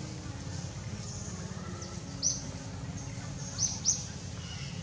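Three short, high-pitched bird chirps, one a little after two seconds in and a quick pair near the end, over a steady low background hum.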